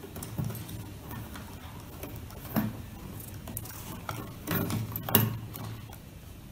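Electrical wires being handled and bundled with plastic cable ties: soft rustles and small plastic clicks, with a few louder knocks about two and a half and five seconds in.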